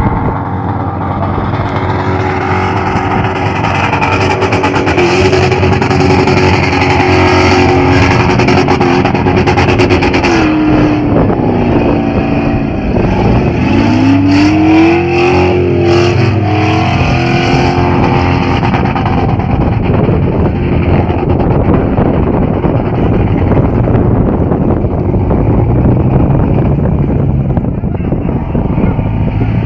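Car engine running hard at high revs. Its pitch sags briefly about thirteen seconds in and climbs back up, with a hissing, crackly stretch around that dip.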